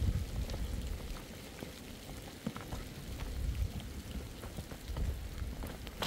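Footsteps over loose rocks and gravel, with scattered clicks of stones knocking together and a low wind rumble on the microphone.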